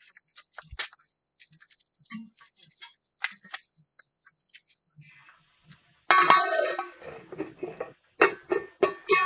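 Copper lid set down onto a copper cooking pot about six seconds in: a loud metal clatter with a ringing tone, followed by a few sharp clanks. Before it, only a few faint light clicks.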